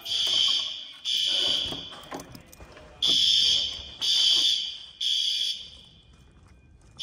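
System Sensor L-series fire alarm horns sounding the temporal-three evacuation pattern. Short, high-pitched blasts come about a second apart in threes, each set followed by a longer pause before the next.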